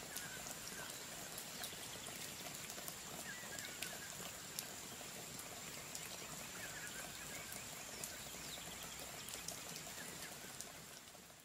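Faint background noise: a steady hiss with a thin high whine, scattered light ticks and a few short chirps, fading out near the end.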